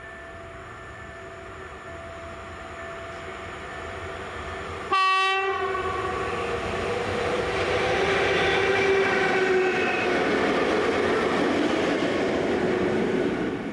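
Train approaching and sounding its horn in one short blast about five seconds in, then running past, its noise growing louder and holding there.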